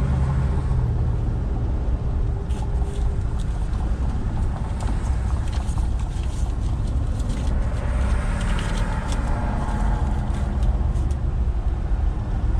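Car being driven at road speed: a steady low rumble of tyres and engine, with a scatter of light clicks and ticks through the middle.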